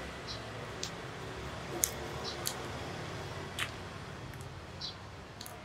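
Cooked crab shell cracking and snapping as it is pulled apart by hand: about half a dozen sharp cracks, a second or so apart, with small wet squelches, over a steady low background hum.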